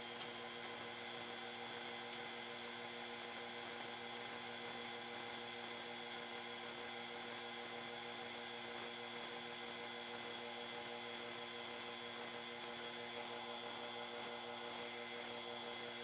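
Snap-on PS134 Pro A/C service station's recovery compressor running steadily with an even hum while it draws refrigerant out of the car's air-conditioning system. A sharp click about two seconds in.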